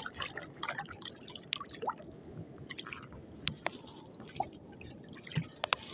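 Water lapping, dripping and gurgling against the hull and bamboo outrigger of a small wooden boat, with a few light clicks scattered through.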